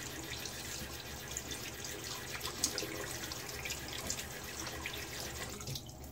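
Bathroom sink faucet running while a hand is rinsed under it, water splashing in the basin; the tap is shut off at the very end.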